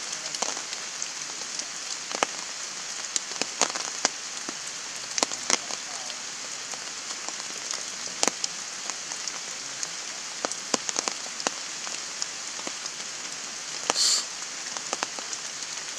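Heavy rain falling in a steady hiss, with many sharp drops ticking close by at irregular moments. There is a brief, louder burst of hiss near the end.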